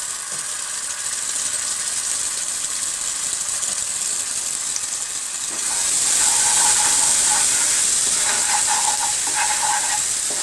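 Ground garlic and red-chilli chutney paste sizzling in hot ghee in a kadai, the sizzle growing louder about six seconds in, with a spatula stirring the pan near the end.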